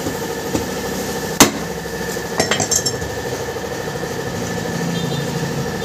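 Hammer blows on a dented motorcycle wheel rim as it is straightened by hand: one loud sharp strike about one and a half seconds in, then two lighter ringing metallic taps about a second later, over a steady background hum.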